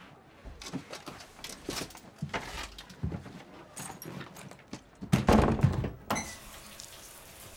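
Knocks and clicks of a wooden front door being handled and opened, with a heavy thud of the door about five seconds in. A bath tap is then turned on and water starts running steadily near the end.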